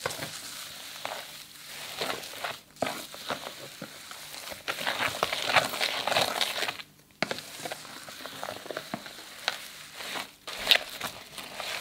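Hands squishing and stirring slime loaded with metallic foil confetti: a dense crackling and crinkling, with two brief breaks.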